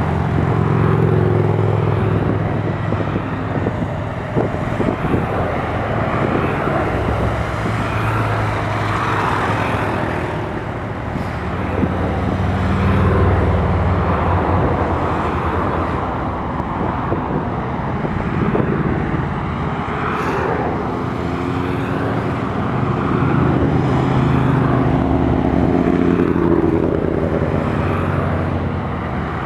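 A procession of motorcycles, a mix of cruisers and sport and touring bikes, riding past one after another in an unbroken line. Their engine notes swell and fade as each bike goes by.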